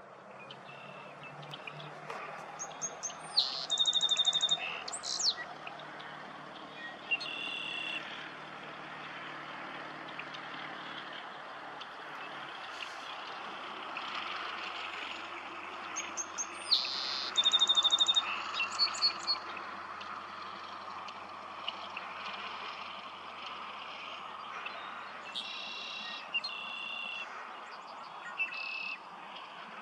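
A songbird sings short songs of fast high trills and clear whistled notes, repeated every several seconds, over a steady haze of distant birds and a faint low hum.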